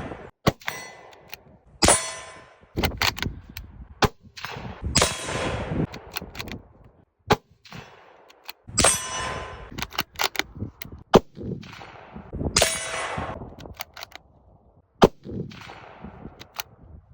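Ruger American Ranch 5.56 bolt-action rifle with a muzzle brake fired about four times, roughly every three to four seconds. Each shot is followed by a ringing metallic clang, with short clicks of the bolt being worked between the shots.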